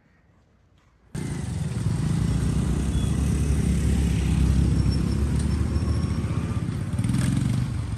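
Motorcycle engine running as the bike is ridden, starting abruptly about a second in as a steady low rumble.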